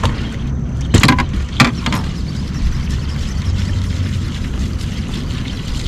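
Knocks and clatter from a landing net being pulled out and bumping against the bass boat, about a second in and again just after, over a steady low rumble.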